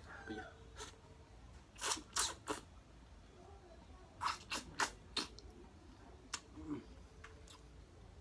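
Close-miked eating sounds: wet mouth clicks and crunches of biting and chewing boiled chicken, in short clusters of sharp clicks about two seconds in and again around four to five seconds in.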